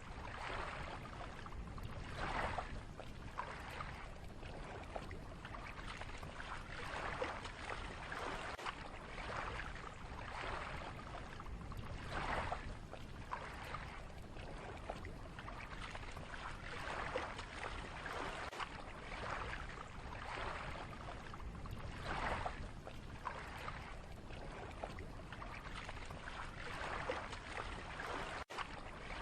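Lake water lapping in small waves, with irregular splashes every second or two over a steady wash.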